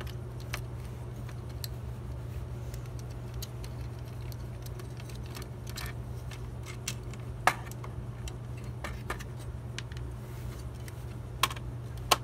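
Scattered small metal clicks and clinks of parts being handled in an old steel PC tower case during disassembly, with a sharper click about seven seconds in and two more near the end. A steady low hum runs underneath.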